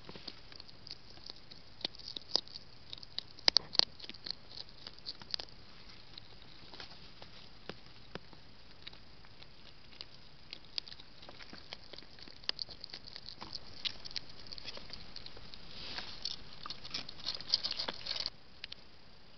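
European hedgehog moving right against the camera: irregular sharp clicks and crackles, busiest a few seconds in and again toward the end, cutting off suddenly near the end.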